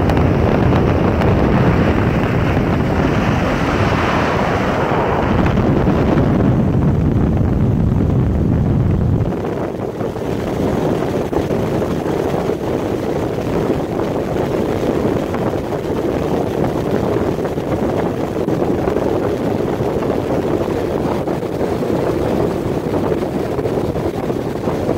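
Motorboat under way, with wind buffeting the microphone; about nine seconds in the low rumble drops away sharply as the boat slows, leaving a quieter, steady engine and water noise.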